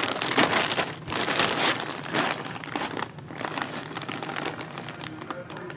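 Clear plastic bag around a jersey crinkling as it is handled and turned over, loudest in the first two seconds.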